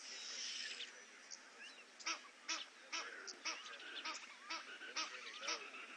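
African wild dogs twittering: a run of short, high, chirping calls at about two a second, starting about two seconds in. A brief rushing hiss comes before them in the first second.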